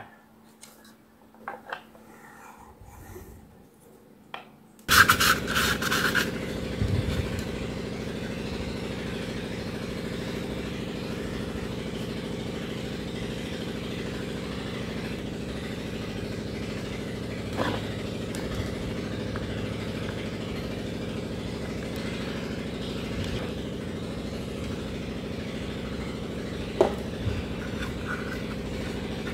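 Light clicks of plastic parts being handled, then about five seconds in an engine starts abruptly and settles into a steady idle, with a couple of brief knocks over it.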